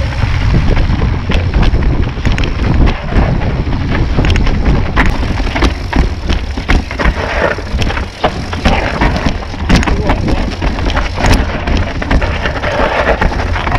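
Wind buffeting an action camera's microphone during a mountain bike ride over rough dirt trail, with a steady low rumble and frequent clicks and knocks from the bike rattling.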